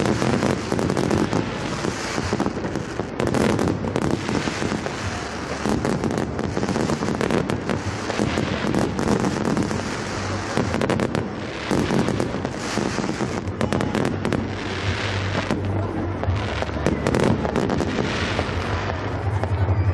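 Fireworks display: aerial shells bursting and crackling in a dense, unbroken barrage of bangs.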